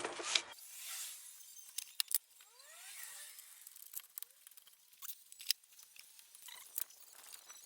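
A few sharp, light clicks and clinks, scattered and spaced out, with faint short rising chirps among them.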